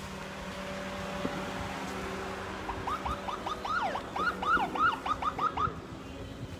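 A siren sounds a quick run of about ten short rising whoops, about three a second, for some three seconds starting a little before halfway in. Under it runs a steady low hum.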